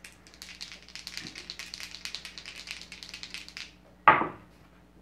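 A pair of six-sided dice rattled in a cupped hand as a quick run of light clicks for about three seconds, then a single sharp, loud knock about four seconds in as they are thrown into the dice tray: an attack roll.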